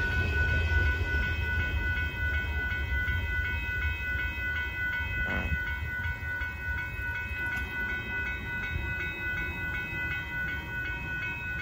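Railroad crossing bell ringing steadily at about two strokes a second over the low, fading rumble of a Union Pacific freight train moving away, with a single knock about five seconds in.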